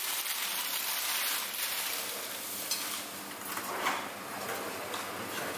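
Food sizzling in hot oil: a steady hiss, with a couple of faint knocks partway through.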